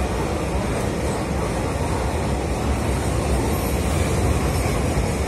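Container wagons of a freight train rolling past at speed: a steady rumble of steel wheels on the rails.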